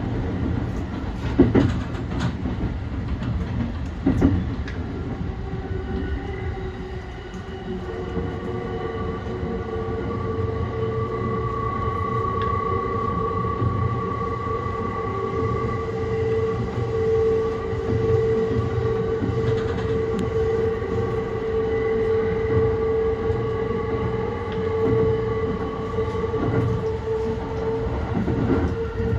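E235 series electric train running along the line, heard from on board: a steady low rumble of the wheels, with a few sharp clacks over rail joints in the first seconds. From about six seconds in, a steady whine from the traction motors joins the rumble.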